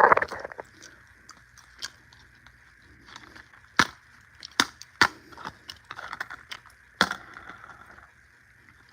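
Scattered sharp clicks and knocks of small hard objects being handled, a few louder ones close together about four to five seconds in and another near seven seconds.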